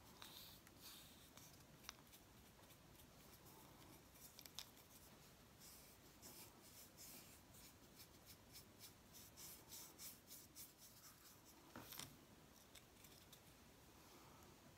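Faint, scratchy strokes of a wide angle shader paintbrush laying acrylic paint onto the hard dried shell of a bottle gourd, with a light tap about twelve seconds in.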